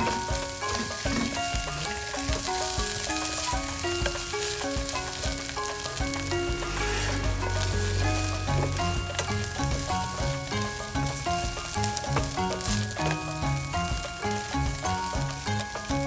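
Dried salted fish (tuyo) sizzling as they are stir-fried in a stainless-steel pot, with the scrape and knock of a wooden spatula stirring them. Light background music with short plucked-sounding notes plays underneath.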